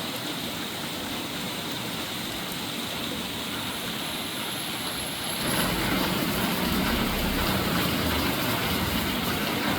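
Steady monsoon rain falling, an even hiss. About halfway through, a low engine rumble joins it and carries on.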